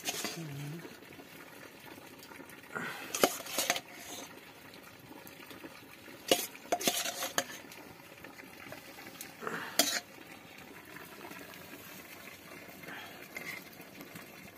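Metal serving spoon scraping and clinking against a stainless-steel bowl and plates as curry is ladled onto rice, in short clusters of clinks a few seconds apart.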